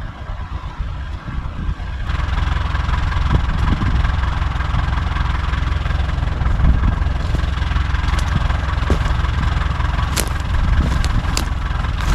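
Tractor engine running steadily, its sound stepping up about two seconds in. In the second half, sharp cracks and rustles of branches as someone steps through the brush pile close by.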